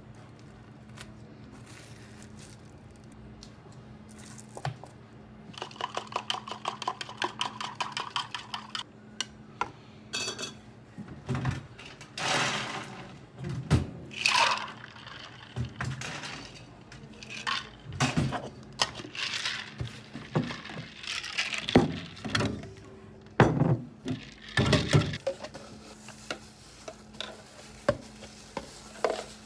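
Bubble tea being made by hand: a fast, even rattle for about three seconds, like ice shaken in a plastic cocktail shaker. Then a long run of clinks and knocks as plastic cups, shaker parts and a scoop are handled on a wooden counter.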